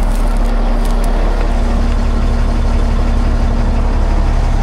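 Cat C15 six-cylinder turbo diesel in a Cat 651B scraper idling steadily and really loud from its exhaust leaks, the likely cause of its low turbo boost and low power.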